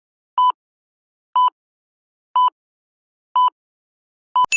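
Electronic countdown-timer beeps: five short, identical beeps, one each second, ticking off the time to answer a quiz question. A bright ding starts right at the end as the time runs out.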